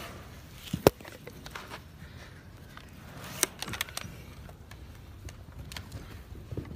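Long-handled hoof nippers cutting through a donkey's hoof wall: one sharp, loud snap about a second in, then a smaller crack and a few light clicks around three and a half seconds.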